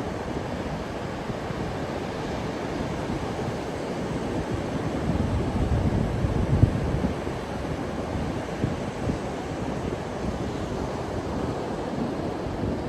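Atlantic Ocean surf washing onto the beach, a steady rushing of waves that swells about halfway through, with wind buffeting the microphone.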